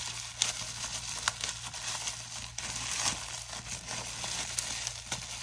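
Plastic wrapping crinkling and crackling as it is pulled and worked open by hand, with scattered sharp crackles throughout.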